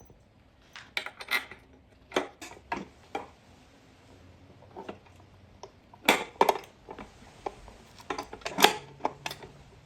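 Small metal parts clinking and clanking in irregular knocks as bolts, washers and the steel creeper frame pieces are handled and fitted together. The loudest clanks come about six seconds in and near the end.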